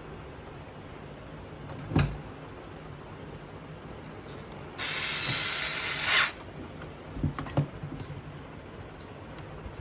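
Cordless electric screwdriver running for about a second and a half, about five seconds in, driving a screw into the SSD's metal mounting bracket. A sharp knock comes before it and a couple of knocks after, from the drive and bracket being handled.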